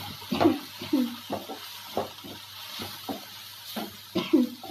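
A spatula stirring and scraping a spiced tomato masala in a non-stick frying pan, in irregular knocks and scrapes, a few with a short squeak, over a faint sizzle.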